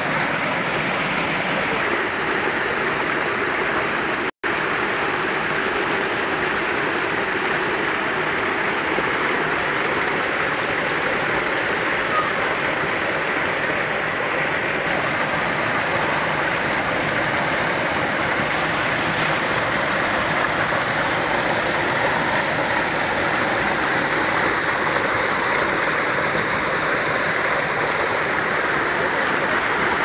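Waterfall water rushing over rocks, a steady even rush with no let-up. It cuts out for an instant about four seconds in.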